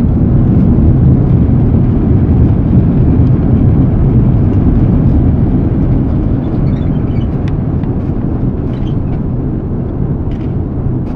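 Steady low roar of an Airbus A330 heard from inside the cabin as the jet rolls out on the runway after touchdown, slowly dying down as the aircraft slows.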